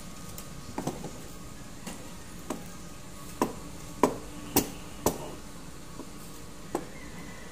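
Irregular hard plastic knocks and clicks as an Ingco rotary hammer is handled and lifted out of its moulded plastic carry case, about nine separate knocks, the loudest two about four and four and a half seconds in.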